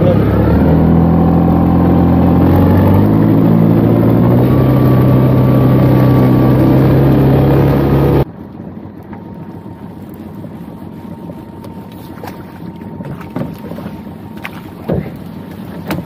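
A motor running with a steady low hum, stepping up in pitch twice, then cutting off abruptly about halfway through. After it comes a much quieter bed of water noise with scattered light knocks.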